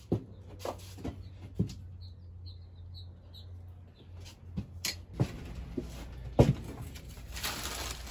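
Paper-wrapped reproduction cast iron toys and plastic milk crates being handled: a series of sharp knocks and clunks, the loudest about six seconds in, with paper rustling near the end. A steady low hum runs underneath.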